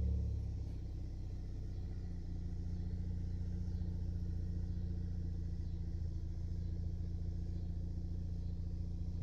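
2014 Ford Focus ST's turbocharged 2.0-litre four-cylinder running steadily through a catless downpipe and cat-back exhaust, a deep, even note. It is slightly louder at the start, eases off over the first two seconds, then holds level.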